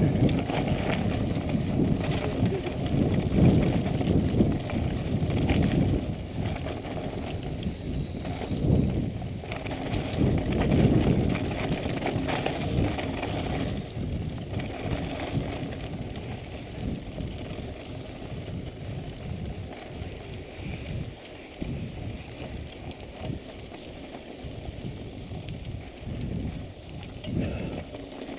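Mountain bike ridden over a wet dirt and sand track: tyre rumble with rattling over the bumps, louder in the first half and easing off later.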